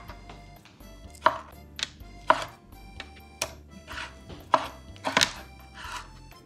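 A chef's knife chopping raw bass fillets into chunks on a wooden cutting board: a series of irregular knife strokes about every half second, each blade knocking against the board.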